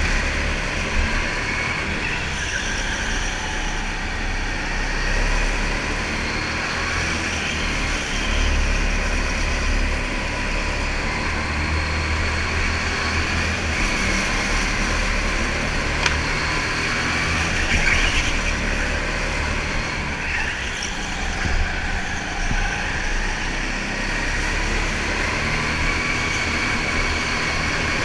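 Go-kart engine running at speed, heard from on board the kart, its pitch rising and falling as the kart accelerates out of corners and slows into them, with rolling and wind noise underneath.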